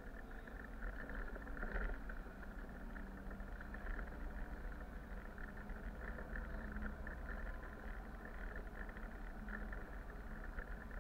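Bus driving at speed, heard from the driver's cab: a steady drone of engine and tyre noise with a deep rumble underneath.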